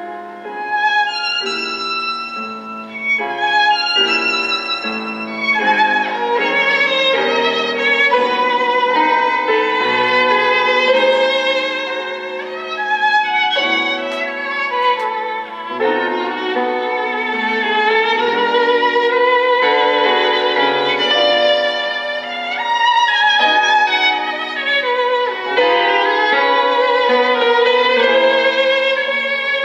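Violin melody with vibrato over a lower accompaniment, played back through a single-ended tube amplifier with Cunningham CX-345 output tubes and its loudspeaker.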